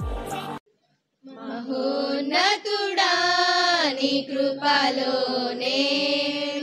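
The end of an electronic intro jingle with falling sweeps, cut off within the first second; after a short silence, a group of teenage girls begins singing a Telugu Christian worship song together in unison, in long held notes.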